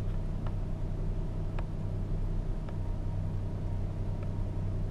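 Inside a moving vehicle: steady low engine and road rumble, with a few faint ticks.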